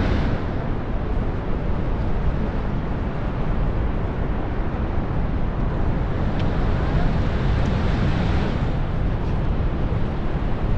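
Steady roar of Niagara's Horseshoe Falls heard from the brink: a dense, unbroken rushing noise heaviest in the low end.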